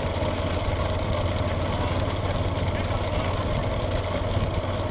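A vehicle engine running steadily with a constant low hum.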